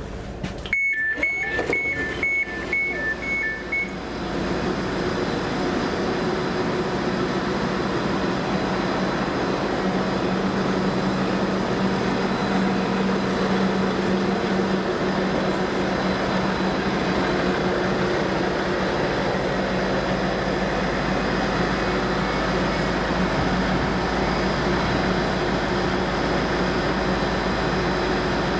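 A train door's warning beeps sound rapidly in two alternating tones for about three seconds. Then comes the steady running of a Class 755 power pack car's diesel generator sets and cooling fans, an even noise over a constant low hum.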